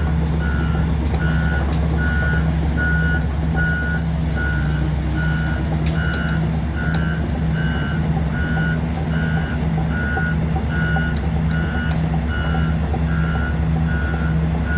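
Hitachi Zaxis 870 LCH crawler excavator travelling: its travel alarm beeps steadily, about one and a half beeps a second, over the steady low drone of its diesel engine.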